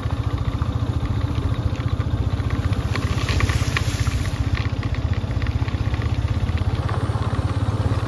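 Motorcycle engine running at a steady cruise while riding along a road, with a fast, even low firing pulse.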